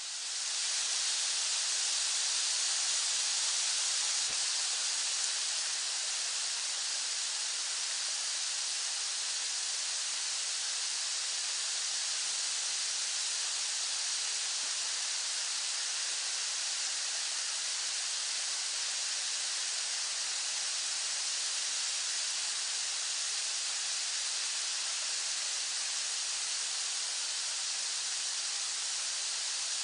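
Steady rain sound effect: an even, unbroken hiss of rainfall, strongest in the high end. It swells to full level about a second in, with no separate drops or thunder standing out.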